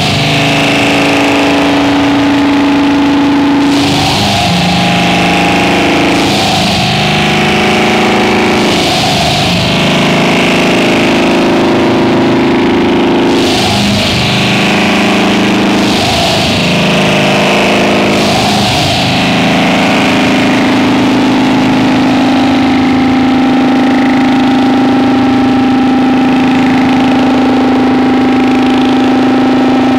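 Harsh noise music played live: a loud, distorted drone with bursts of noise sweeping in every two or three seconds, settling into a steady drone about two-thirds of the way through.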